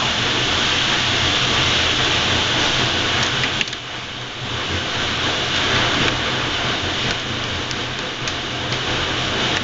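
Heavy hailstorm: a dense, steady hiss of hail and rain coming down, with a few sharper ticks of individual hailstones striking. It eases briefly a little under four seconds in, then builds up again.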